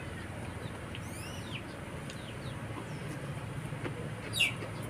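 Small birds chirping: scattered short, sweeping chirps, the loudest about four seconds in, over a steady low rumble.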